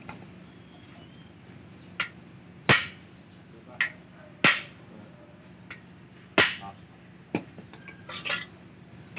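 Sharp metal-on-metal knocks, about seven at uneven intervals with two or three loud ones ringing briefly, as a steel pipe is rammed down over a motorcycle's steering stem to drive the bearing home.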